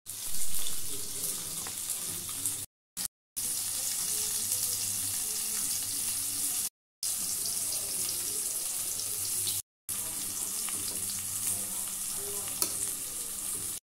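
Steady sizzling hiss, broken by a few brief silences, with light clicks and scrapes of a metal ladle stirring carrot pieces in an aluminium pressure cooker, one sharper click near the end.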